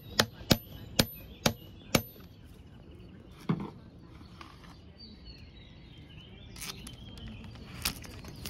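Six sharp metallic clicks, about half a second apart, from a hex-bit tool working the screws in the hub of a Varifold folding propeller. One more knock follows, then a steady outdoor background.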